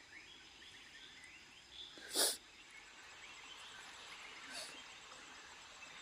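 Faint birdsong at dawn: scattered small chirps over a quiet outdoor background. A short, sharp noisy burst cuts in about two seconds in, and a fainter high one comes near the middle.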